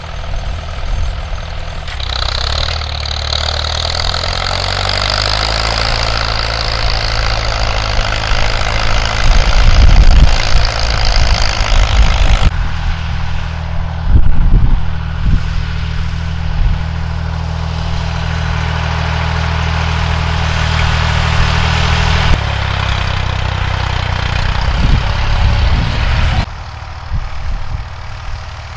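Vintage tractor engines running steadily in a few short takes, the sound changing abruptly between them, with one engine's pitch shifting a few seconds in. Loud rumbling thumps break in twice near the middle.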